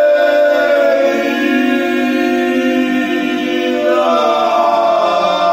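Several men chanting a galdr, an Old Norse incantation, together without instruments, holding long drawn-out vocal tones. The voices shift in pitch about four seconds in.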